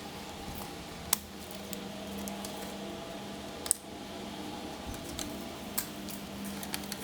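Small sharp clicks and taps of plastic and metal from handling a laptop being taken apart, three louder ones about a second, three and a half and six seconds in, over a steady low hum.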